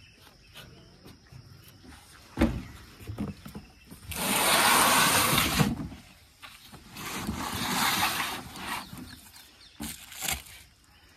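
A large carton sliding and scraping across a pickup truck's load bed: a thump, then two stretches of scraping, the first the louder, with scattered knocks.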